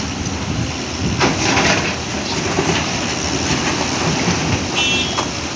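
JCB NXT 225LC M tracked excavator's diesel engine running under load as the machine swings and digs into broken quarry rock, with a louder stretch of rock scraping and clattering about a second in. A short high-pitched squeal sounds near the end.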